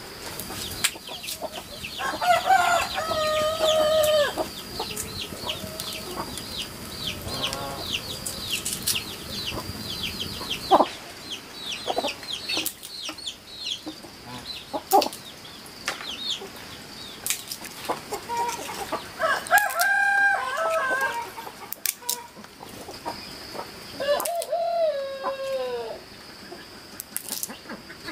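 Rooster crowing three times: about two seconds in, near the middle and again near the end, each crow a held call, the last one falling off at the end. Between the crows come runs of quick high chirps and scattered sharp knocks.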